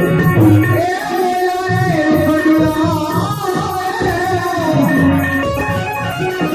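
Gujarati devotional bhajan (santvani): a voice sings long, wavering melodic lines over sustained accompanying tones and a drum rhythm.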